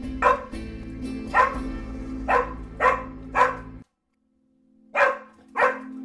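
A small dog barking in short, sharp yaps: five in quick succession, then two more after a brief pause.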